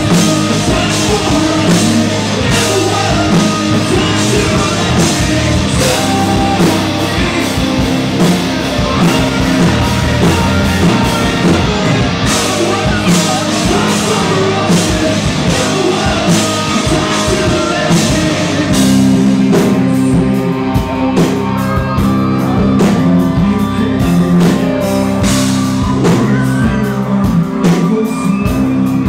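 Live rock band playing loudly: electric guitars, bass and drums, with sung vocals. About two-thirds of the way in, the music settles into steady, held low notes.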